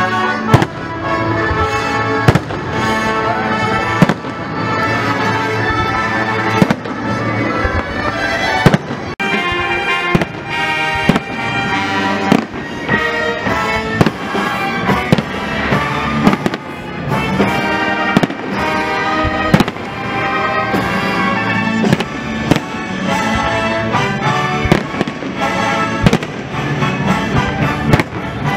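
Aerial fireworks bursting in a display: repeated sharp bangs at uneven intervals, with music playing under them the whole time.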